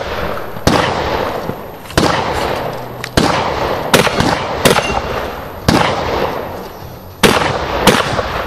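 Shotgun fired in a practical-shooting stage: about nine loud shots at uneven intervals of roughly half a second to a second and a half, each followed by a long echoing tail.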